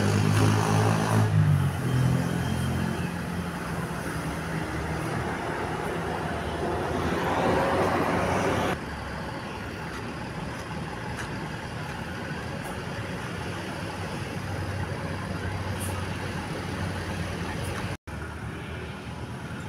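Road traffic with a heavy vehicle's engine passing, swelling in loudness and cutting off abruptly about nine seconds in, then steady traffic noise. No clear melodic horn is heard.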